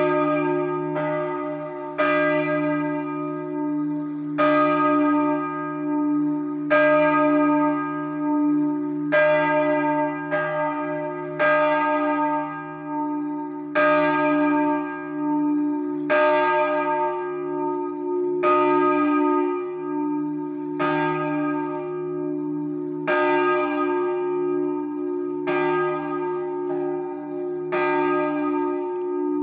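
The middle bell of a three-bell peal cast by Capanni in 2009, swung for the noon ringing (a 'distesa'). Its clapper strikes at uneven intervals of about one to two and a half seconds, and the bell's low hum rings on between strokes.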